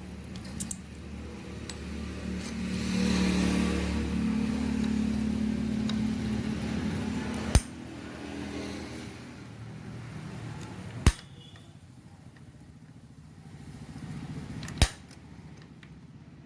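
A small motor or engine hums steadily for a few seconds, then stops. Three sharp clicks or knocks follow, a few seconds apart.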